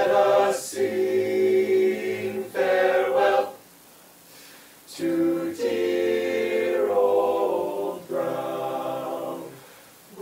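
All-male a cappella group singing without instruments, sustained chords over a low bass line. Two long phrases, with a pause of about a second in the middle; the second phrase fades away near the end.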